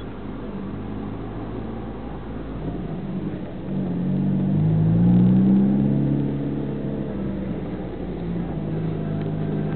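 Car engine accelerating, heard from inside the car: a low drone whose pitch rises about four to six seconds in, then settles into a steady cruise.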